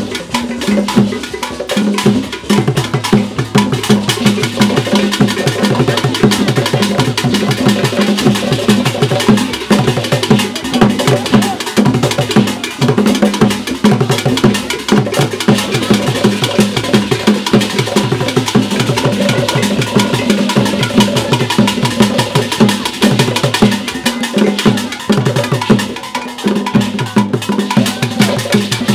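Traditional Ghanaian drumming and percussion playing a fast, dense rhythm without a pause.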